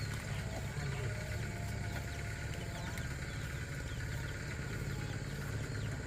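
A steady low hum with many small, high bird chirps over it.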